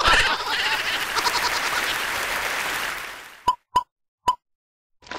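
A rushing hiss that fades away over about three seconds, then three short hollow cartoon pops, the last coming a little after the first two.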